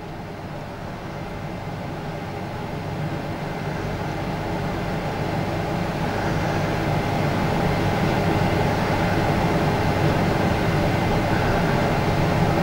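A steady low hum with a rumble and several held tones, swelling slowly louder over the first several seconds and then holding steady.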